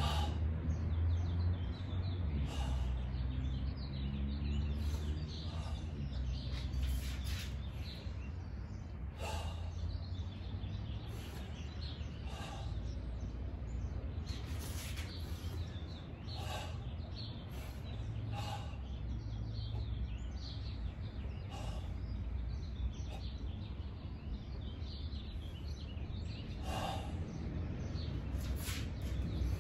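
Steady low background rumble, with short, sharp high sounds every second or two.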